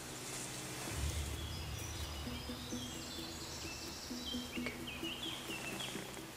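Woodland ambience with small birds chirping in short high phrases, and a low rumble about a second in.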